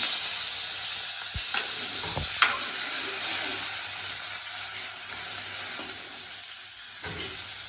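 Chopped tomato, shallots and coconut sizzling in hot oil in a kadai, loudest at the start and easing off slowly. A few sharp clicks of the stirring spatula against the pan come about two seconds in.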